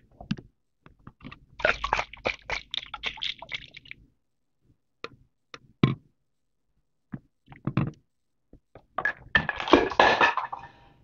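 Small plastic baby items being handled and set down on a table: a burst of rustling, scraping and tapping about two seconds in, a few scattered taps, then a denser burst of rustling near the end.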